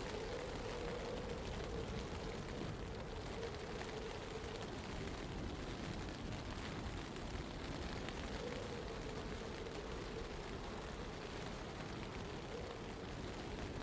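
Steady ambience of a blizzard in a city: an even rush of wind and blowing snow, with a faint wavering hum that fades out in the middle and returns about eight seconds in.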